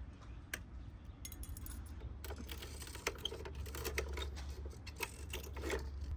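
Hand metal snips trimming a stamped steel roofing shingle's lock: a run of sharp metallic snips and clicks, sparse at first and coming thick and fast from about two seconds in, over a low steady hum.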